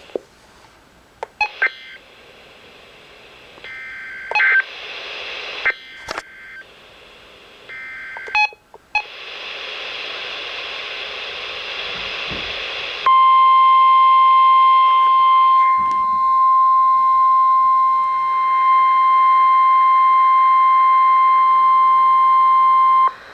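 NOAA Weather Radio EAS signalling: several short, warbling SAME digital data bursts, then a stretch of radio hiss. About halfway in, the loud, steady 1050 Hz weather radio alert tone starts and holds for about ten seconds, signalling a new warning message.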